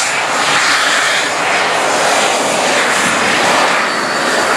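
Modified pulling tractor at full power, dragging a weight-transfer sled down the track: a loud, steady engine noise.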